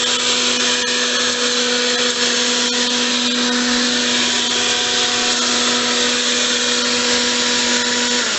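Corded electric Flymo PowerVac 3000 garden blower vac running steadily in vacuum mode, a loud motor-and-fan whine over rushing air as it sucks up dry grass cuttings. It is switched off at the very end and its whine starts to fall.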